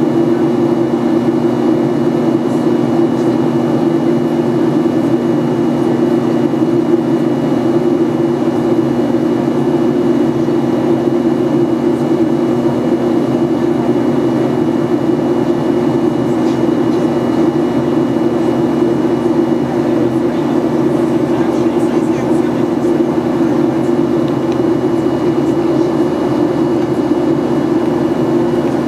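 Cabin noise of a Boeing 737-800 in flight, heard from a window seat: a steady, loud rush of jet engines and airflow with a constant low hum.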